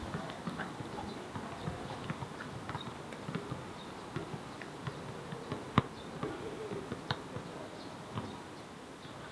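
Footsteps on hard paving with scattered small clicks and knocks, and one sharp knock about six seconds in.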